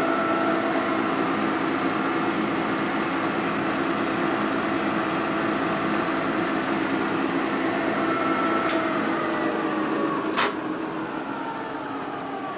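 Milling machine face-cutting an aluminium panhead engine case: the spindle and cutter run steadily through the metal, with two sharp ticks near the end.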